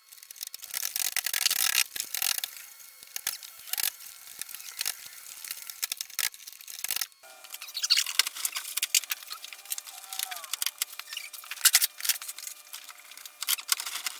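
Fast-forwarded work sound of a truck's interior door panel being fitted back on: a rapid, sped-up jumble of clicks, knocks, rattles and short squeaks, with a brief cut about seven seconds in.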